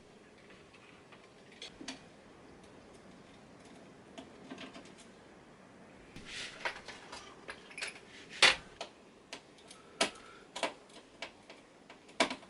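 Clicks and knocks of hard plastic and metal parts as an SSD is fitted into a PC case: a few faint clicks at first, then a busier run of sharper clicks from about six seconds in, the loudest a little past eight seconds.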